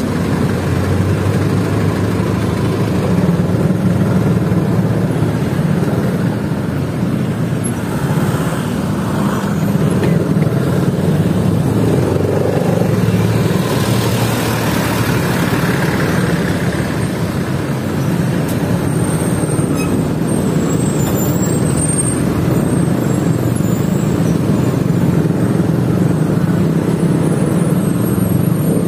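Small motorcycle engine running at low speed in slow, stop-and-go city traffic, heard close up with the surrounding traffic noise around it. A brief rushing hiss rises about halfway through.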